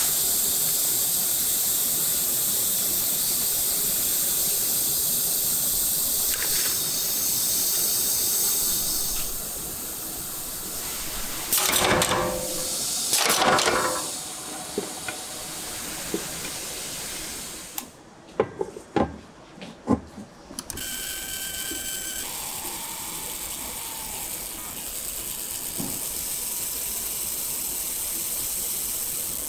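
Steady machine hiss in a wok factory, then metal clanking for a couple of seconds about midway as finished cast-aluminium woks are set onto a stack. A few sharp clicks follow, then a steady hiss with a faint high tone during laser marking of a wok base.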